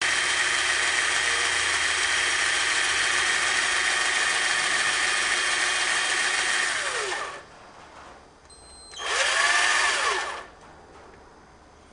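Power drill running steadily at full speed for about seven seconds, then winding down with a falling whine. After a short pause it makes a second, briefer run of about a second and a half that spins up and winds down again.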